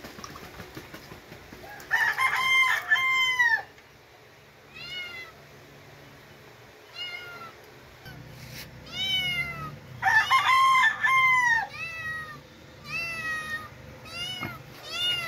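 Kittens meowing over and over, short rise-and-fall calls, with louder bursts of several calls overlapping about two seconds in and again about ten seconds in.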